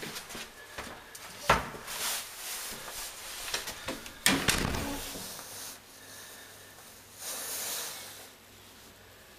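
Handling and movement noises from someone carrying the camera and getting into cover: a sharp knock about a second and a half in, a louder thud with a rattle just after four seconds, and a rustle near the end.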